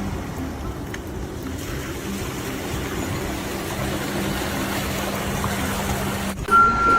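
A vehicle engine running steadily. Near the end a reversing alarm starts beeping.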